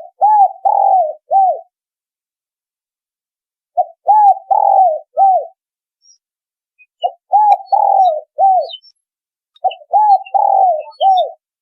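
Spotted dove (tekukur) cooing, a recorded call used as a hunting lure: four phrases of three to five short arched coos each, repeated about every three seconds, with faint high chirps between them.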